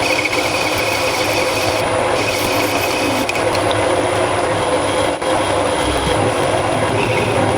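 A machine tool in a workshop running steadily while it cuts metal: a continuous mechanical noise with a steady whine through it.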